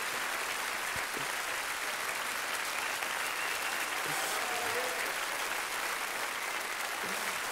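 Large studio audience applauding, a steady wash of clapping.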